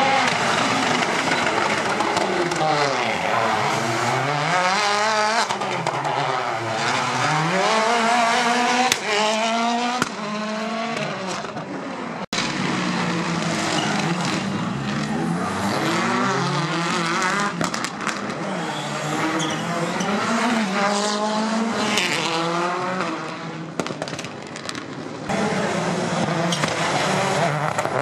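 Rally cars' engines revving hard and dropping back again and again through gear changes as they drive the stage, with a brief cut near the middle.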